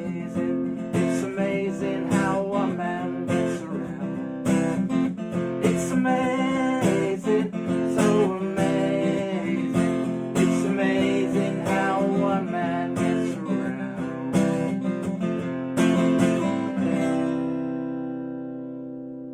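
Acoustic guitar strumming and picking the instrumental close of a song, ending about 17 seconds in on a final chord left to ring and fade.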